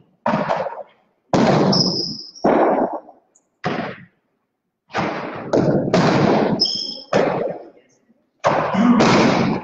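Jai alai pelota hitting the walls and floor of the court during a rally, a quick series of sharp hits each ringing on in the hall. A few short high squeaks sound between the hits.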